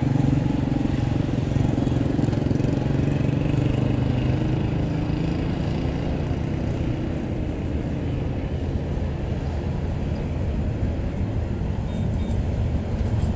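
GE GEU-40 (ES43ACi) diesel-electric locomotive's GEVO-12 diesel engine running with a steady low drone as the engine approaches at low speed.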